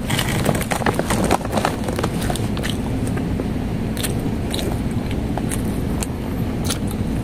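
Close-miked mouth sounds of a person chewing soft layered cake topped with grated cheese: wet smacks and small clicks, thickest in the first two seconds and sparser after.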